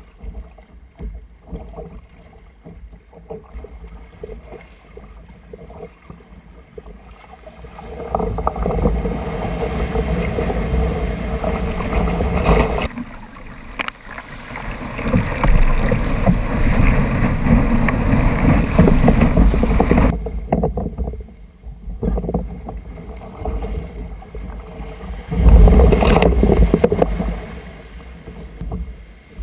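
Sea water rushing and splashing along the hull of a plastic sit-on-top fishing kayak as it is paddled out and rides surf, with wind buffeting the microphone. Light paddle splashes at first, then long surges of loud rushing water as waves carry the boat, the loudest about twenty-five seconds in.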